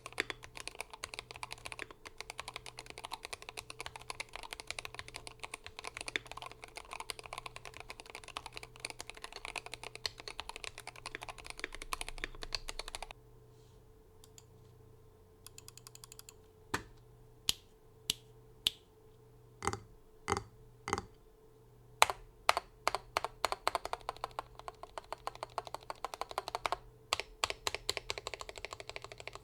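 Typing on a Glorious GMMK 3 Pro HE 75% keyboard with hand-lubed Fox Red HE magnetic linear switches, lubed stock stabilizers, a tape mod and full foam: fast continuous typing for about the first half, a short quiet pause, then a run of single keystrokes about half a second to a second apart, and fast typing again near the end.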